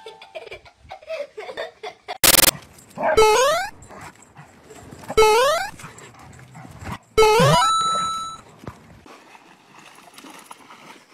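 A dog giving three excited whining yelps about two seconds apart, each sliding upward in pitch. Just before them comes a short, loud burst of noise.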